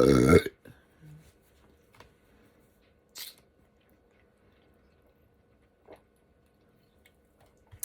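A short, loud burp right at the start, followed by a few faint, scattered mouth and eating noises, including a brief noisy one about three seconds in.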